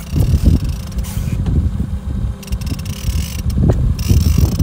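Wind buffeting the microphone on an open boat: a loud, gusting low rumble that swells and drops unevenly, with a couple of sharp clicks near the end.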